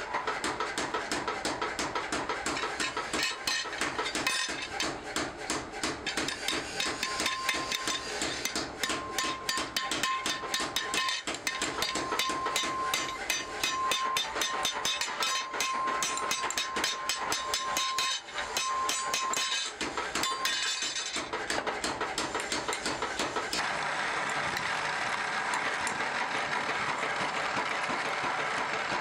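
Rapid light hammer taps on steel as the handle rivets of a meat cleaver are peened over on an anvil. About 21 seconds in this gives way to a drill press running and boring into a wooden handle scale.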